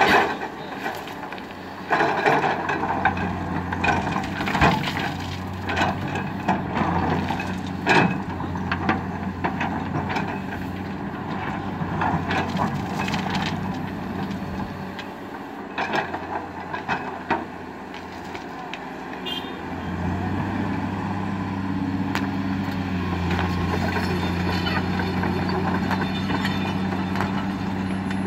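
Komatsu crawler excavator's diesel engine running under load while its bucket dumps gravel and stones into a dump truck's steel bed, the rocks clattering and thudding down in several separate loads. In the last third the dumping stops and the engine hum runs steadier and a little louder.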